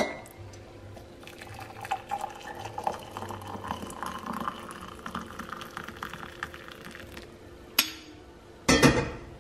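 Hot water poured from a stovetop kettle into a ceramic mug over a tea bag, the pitch of the filling rising as the mug fills. A sharp click at the start, and a louder clunk near the end as something is set down.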